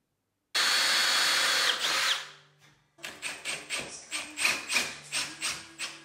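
Cordless power driver running at full speed for about a second and a half, then driving a wood screw into board in a quick series of short pulses, about three or four a second.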